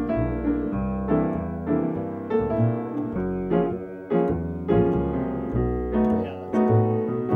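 Jazz piano playing a series of struck chords over low left-hand notes.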